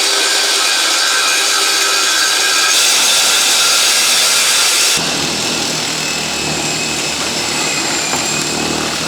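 Electric power tool running continuously under load, loud, with its sound turning lower and heavier about five seconds in.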